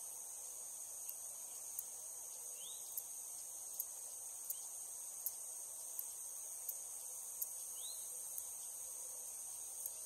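Steady high-pitched drone of cicadas, with a sharp tick about every three-quarters of a second standing out above it. Two short rising bird chirps come in, one about two and a half seconds in and one near the end.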